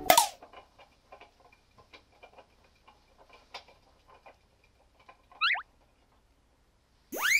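Chinchilla gnawing a hard treat held in its front paws: rapid, faint crunching clicks. It opens with one sharp hit. About five seconds in there is a brief flurry of quick rising chirps, and near the end comes a loud whistle sound effect that slides up and then falls away.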